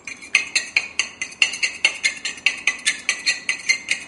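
A fork beating eggs in a bowl, its tines clicking rapidly against the bowl at about five to six strokes a second; loud and squeaky.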